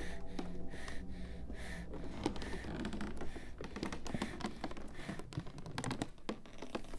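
Rapid, irregular dry clicks and taps over a steady low rumble, with a denser cluster of clicks near the end.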